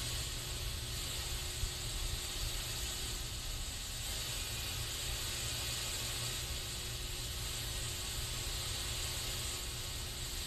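Aerosol spray can hissing without a break: a steady hiss strongest in the high treble, with a low rumble underneath.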